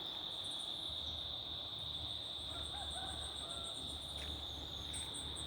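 Steady insect chorus, crickets or similar, making one continuous shrill high trill, with a faster pulsing higher buzz from another insect over it. A few faint short chirps come a little after halfway.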